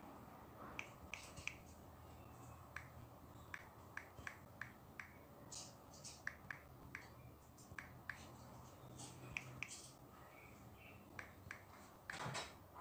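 Irregular light clicks and taps of small Lego pieces being handled, about one or two a second, with a short rustling scrape near the end.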